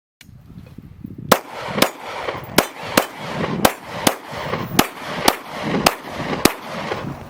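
Semi-automatic gunfire: a steady string of about eleven shots, roughly two a second, starting a little over a second in.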